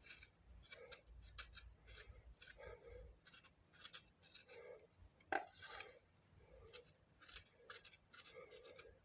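Faint, irregular rasping scrapes, a few strokes a second, as the charred skin is scraped off a fire-roasted guava. One sharper click about five seconds in.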